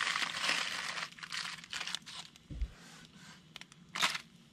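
Foil packet sizzling on hot charcoal, a steady hiss in the first half thinning into scattered crackles, with a sharp snap about four seconds in.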